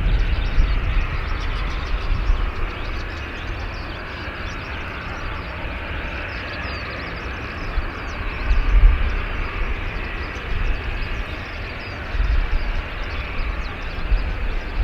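Distant jet engine noise from a Boeing 737-800's CFM56 turbofans, a steady hiss, with wind gusting on the microphone in uneven low rumbles and small birds chirping throughout.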